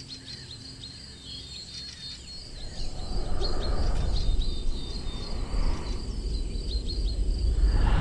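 Small birds chirping in many quick short calls over a steady high-pitched insect-like trill. From about three seconds in, a low rushing noise swells and fades in gusts.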